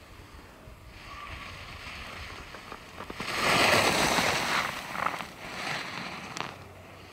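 Skis carving and scraping across packed snow as a skier turns past: a hiss that builds, swells to a loud swoosh about three seconds in, then a few shorter scrapes from the following turns and a sharp click near the end.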